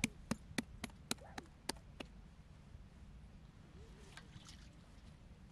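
A quick run of about eight sharp knocks or clicks, three to four a second, that stops about two seconds in, over a low steady rumble.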